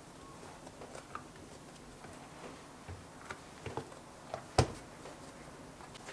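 Scattered soft taps and light knocks of hands shaping salt-bread dough on a silicone baking mat, with one sharper knock about four and a half seconds in.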